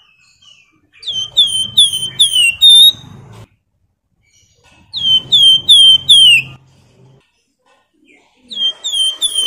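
Javan fulvetta (wergan Jawa, the 'flamboyan' of Indonesian bird-keepers) singing its clear flute-like song: three loud phrases, each a quick run of four or five downslurred whistles, the last cut off by the end.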